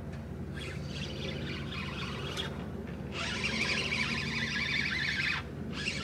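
Fishing reel being wound in on a sea rod, retrieving line after a bite: a steady winding noise that starts faintly, gets louder about three seconds in, and stops briefly near the end before starting again.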